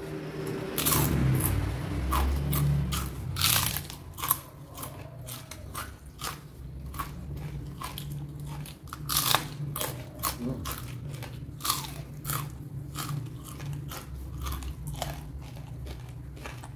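A person biting and chewing crunchy food, with many sharp crunches at an uneven pace over a low chewing rumble; the loudest bites come in the first few seconds and again about nine seconds in.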